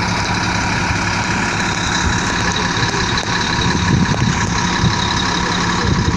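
Heavy diesel engine of a road-construction machine laying stone base, running steadily with a constant hum and a faint steady whine.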